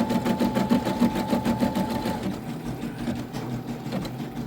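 Computerised home embroidery machine stitching a design in red thread, the needle going up and down in a rapid, even rhythm. A steady whine runs alongside and stops about two seconds in, while the stitching carries on.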